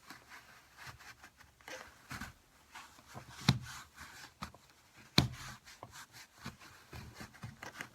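Cloth towel rubbing and scraping as it is worked behind the plastic window crank of an '89 Toyota pickup door to push off the crank's snap ring, with small plastic clicks. Two sharper clicks come about three and a half and five seconds in.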